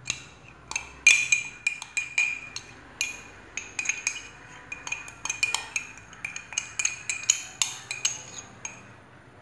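A metal spoon clinking and scraping against the inside of a glass jar as thick ground masala paste is scraped out. It is a quick, uneven run of short ringing clinks, about two or three a second, that stops a little before the end.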